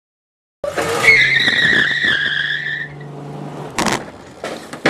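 A loud high squeal with a low steady hum under it, starting abruptly and sliding slightly down in pitch for about two seconds before fading. A sharp bang follows near the end.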